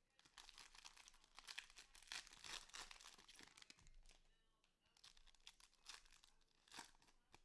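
Faint crinkling and tearing of a trading-card pack wrapper as the pack is opened and the cards handled: a dense run of crackles for the first few seconds, then scattered rustles.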